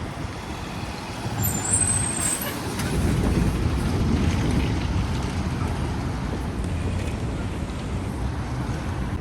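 Engine of a large amphibious tour vehicle running on the road. A brief, thin high squeal comes about one and a half to two and a half seconds in.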